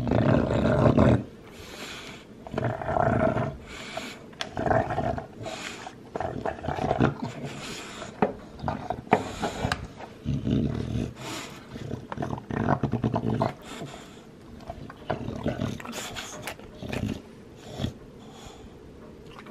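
Olde English Bulldog chewing and gnawing a white chew bone: irregular bursts of mouth and throat noise with sharp clicks of teeth on the bone, dying down in the last couple of seconds.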